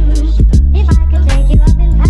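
Background music with a heavy bass, a steady drum beat and a vocal line.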